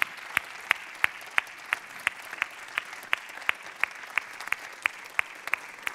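Applause: people clapping, with distinct claps at a steady rate of about three a second over a faint spread of clapping.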